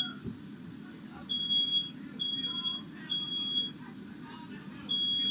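Smoke alarm beeping, a high steady tone in groups of three with a short pause between groups, set off by smoke from a firework lit indoors.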